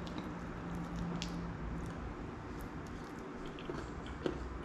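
A spoon scraping and tapping in a bowl of Greek yogurt and granola, with soft eating sounds: a few small clicks, including one about a second in and one near the end. A faint steady hum runs under the first two seconds.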